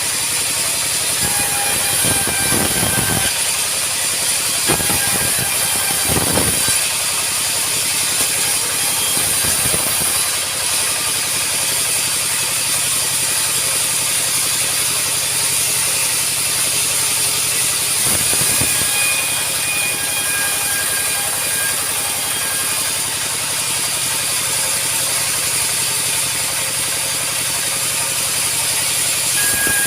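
Sawmill machinery running steadily with a constant mechanical hiss, with several brief knocks in the first ten seconds and one more about halfway through.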